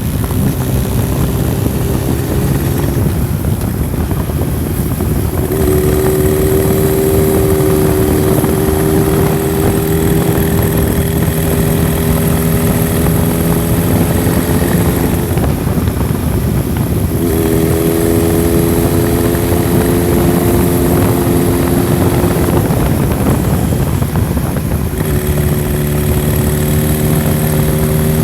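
Honda CB1000SF's inline-four engine running under way, with heavy wind rush over it. Its note holds fairly steady, rising slowly, and drops away briefly three times (about three seconds in, past the middle, and near the end) before picking up again.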